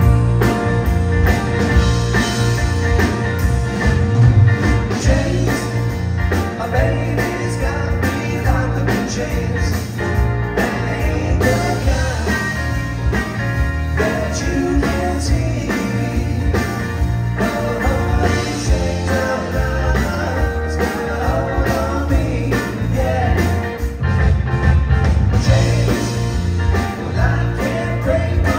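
Live rock band playing a song through the PA: drums, electric guitars and keyboard, with a lead vocal.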